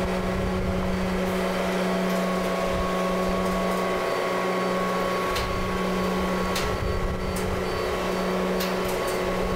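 Steady low machine hum of a large rubber-tyred girder transporter carrying a full-span concrete box girder, with a few light clicks in the second half.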